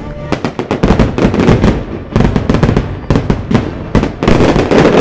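Fireworks going off in a rapid barrage: many shells bursting close together, their loud bangs and crackles overlapping in waves.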